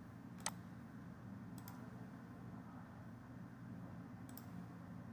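Computer mouse clicks: one sharp click about half a second in and two fainter ones later, over a low steady hum.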